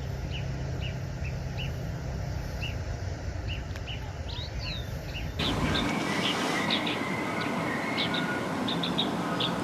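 Small birds chirping in short repeated calls over a steady low rumble; about five seconds in, the background changes abruptly to a lighter hiss while the chirping goes on.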